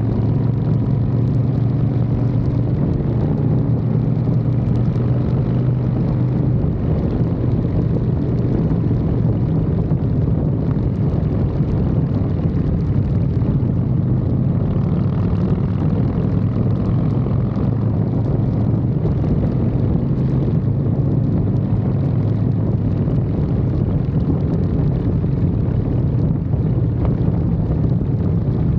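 Harley-Davidson Fat Boy's V-twin engine running steadily while riding at road speed, heard close up from a frame mount, mixed with wind and road noise.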